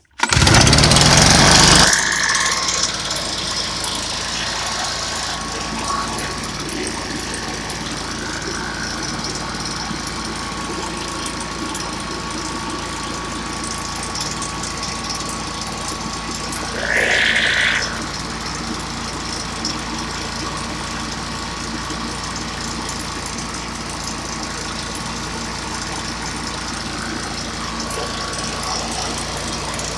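Stihl BR340 backpack blower's two-stroke engine coming to life with a loud burst for about two seconds, then settling into a steady idle, with one brief louder rise about halfway through. It now starts and runs after a new spark plug and a cleaned screen.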